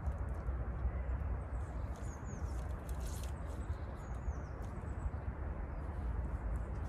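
Steady low rumble of wind on the microphone, with a few faint, high bird chirps about two, four and six and a half seconds in.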